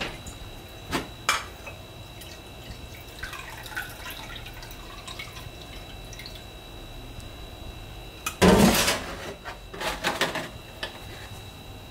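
A drink trickling from a glass carafe into a ceramic mug, with a few light clicks of glass and cup handling. About two-thirds of the way through comes a loud knock on the stainless steel counter as something is set down, followed by a quick patter of small clicks.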